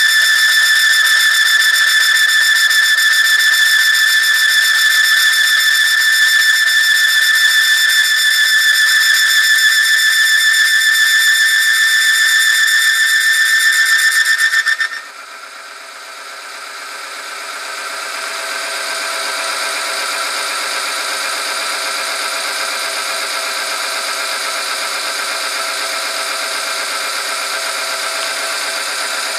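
Oil-film friction tester running under load: its electric motor turns the ring against the steel test sample in the oil, giving a steady high-pitched squeal that stops abruptly about halfway through. A lower, rougher whine then builds over a few seconds and holds steady as the machine keeps turning.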